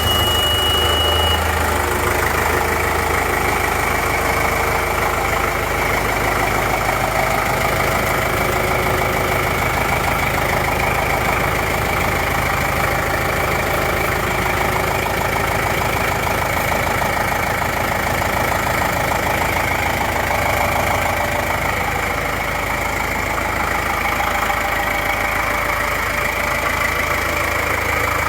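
John Deere 5425's four-cylinder turbo diesel idling steadily, warming up just after starting. A short high-pitched tone sounds in the first second.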